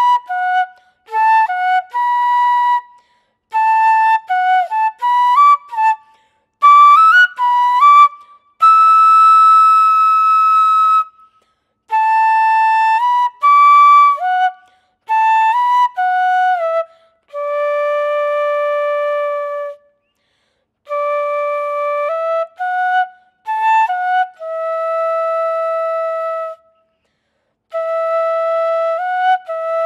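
Unaccompanied dizi (Chinese bamboo transverse flute) playing a melody in short phrases with brief silences between them. Quicker runs of notes alternate with notes held for about two seconds, the first long one near the middle and several more toward the end.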